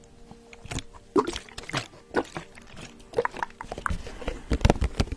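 Close-miked ASMR hand sounds: scattered soft clicks and rustles, then from about four seconds in, hands rubbing and tapping around the microphone in quick, dense strokes.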